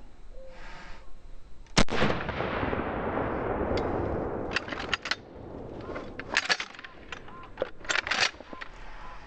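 A single pump-action shotgun shot about two seconds in, its report trailing off over the next few seconds, then several bursts of sharp metallic clacks as the slide is racked one-handed to cycle the next shell.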